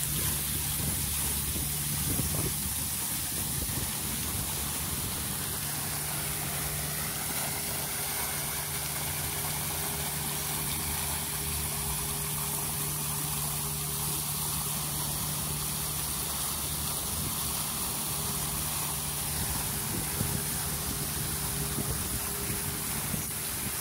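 Fountain jets splashing into a basin: an even rushing of water, with a steady low hum underneath.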